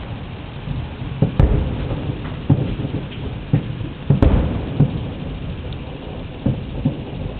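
Distant aerial firework shells exploding: a series of low booms, about seven, over a continuous rumble, the loudest about four seconds in.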